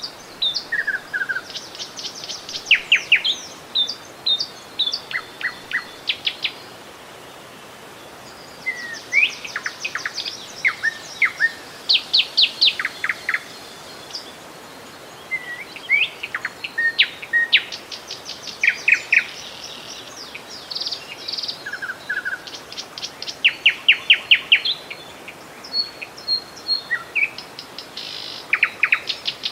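Songbirds singing repeated phrases of rapid chirps and short trills, in bouts broken by pauses of about two seconds, over a steady hiss of running river water.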